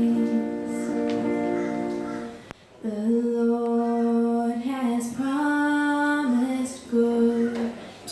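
Solo female voice singing a slow hymn over her own acoustic guitar. A long held note ends about two and a half seconds in, and after a short breath she starts a new phrase of drawn-out notes.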